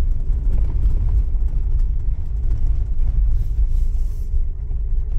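A Jeep rolling along a dirt road, heard from inside the cabin: a steady low rumble of tyres and road noise.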